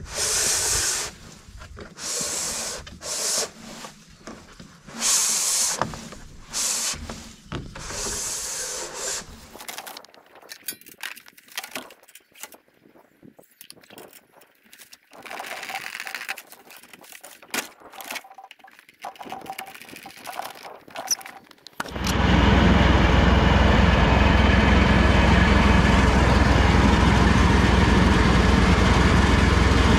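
Repeated scraping and rubbing of straps against a load of PVC pipes being tied down, in bursts for about ten seconds, then quieter scattered handling noises. About 22 seconds in, a tractor engine running steadily cuts in abruptly and becomes the loudest sound.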